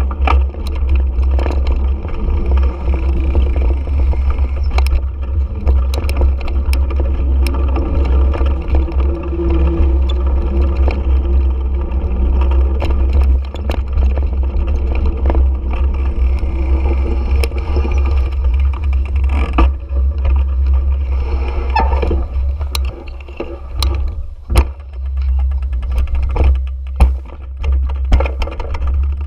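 The engine of the vehicle carrying the camera, likely a motorcycle, runs at low speed. A heavy low rumble of wind and vibration sits on the microphone, with scattered knocks and rattles from the mount, two of them louder near the end.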